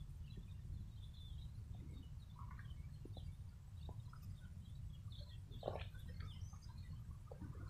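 Faint, scattered bird chirps over a low, steady outdoor rumble, with a few soft clicks.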